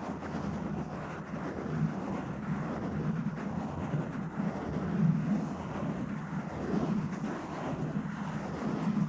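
A microphone being scratched and rubbed up close, giving a continuous low rumbling, rustling scratch that swells and eases irregularly.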